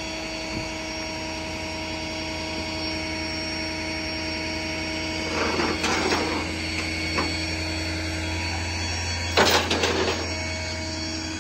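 Truck engine running steadily with a low hum, broken by two short bursts of clatter about halfway through and near the end.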